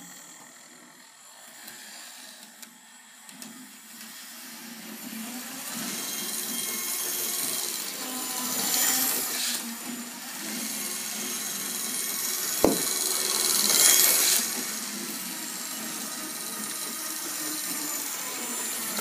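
Hornby 00 gauge model train running on its track: the steady whir of its small electric motor and wheels, growing louder as it comes near and swelling twice as it passes close. A single sharp click about two-thirds of the way through.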